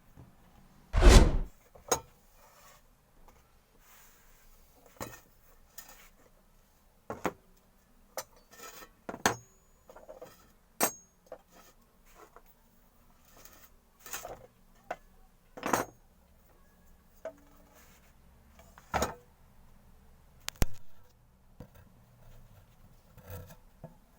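Irregular knocks, taps and clatters of wooden pieces and tools being handled on a work surface, the loudest about a second in.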